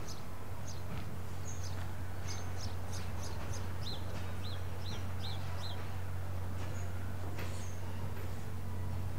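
Small birds chirping, with a run of five quick repeated notes about four seconds in, over a steady low hum.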